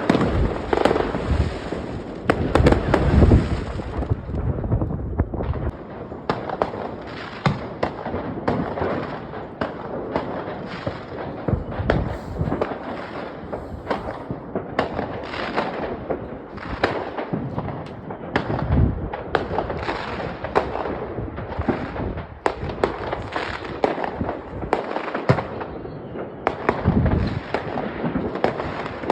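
Fireworks going off in quick succession: a dense run of crackles and bangs, with heavier low booms every several seconds.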